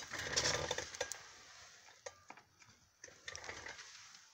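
Rustling and light clicks of plastic toy packaging being handled, most of it in the first second and a half, with a shorter, softer rustle about three seconds in.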